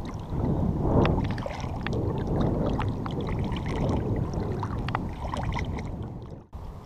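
Bay water sloshing and splashing around a wader's legs, with many small crackling splashes over a heavy low wash, dropping away suddenly near the end.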